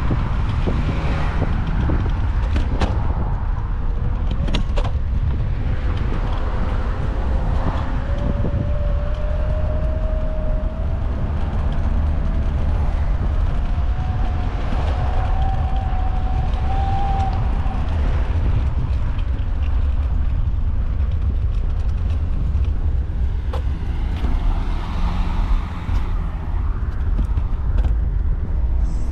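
Riding an electric scooter over pavement: steady wind buffeting on the microphone and low rumble from the small wheels, with a few knocks from bumps in the path. Through the middle a faint whine rises slowly in pitch.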